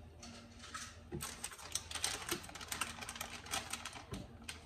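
Clear plastic bacon packaging crinkling and crackling as hands work strips of bacon out of it. A rapid, irregular run of crackles starts about a second in.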